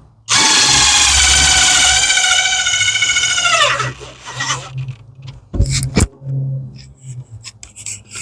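Power drill driving a mounting screw into a pet door frame: the motor whines steadily for about three and a half seconds, then its pitch drops as it slows and stops. A couple of short knocks follow a couple of seconds later.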